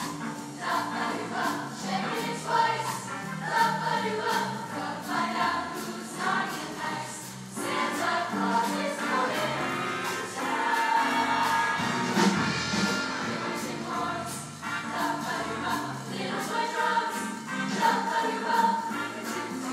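High school show choir singing in parts over instrumental accompaniment with a steady beat.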